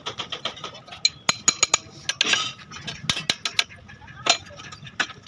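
Metal tools and parts clinking and knocking against each other at irregular intervals, with a few sharp clanks, in bunches about a second in and around three seconds.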